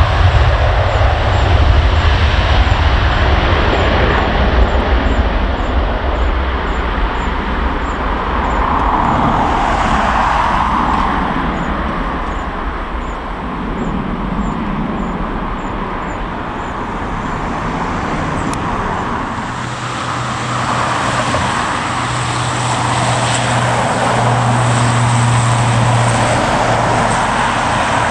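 Steady outdoor engine rumble of airport and road traffic, heaviest in the first few seconds, with a steady low hum joining about twenty seconds in.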